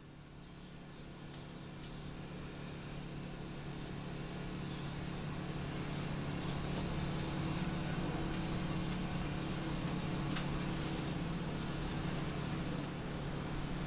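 A steady, low-pitched engine hum that grows louder over the first several seconds and then holds, with a few light clicks from wires and butt-splice connectors being handled.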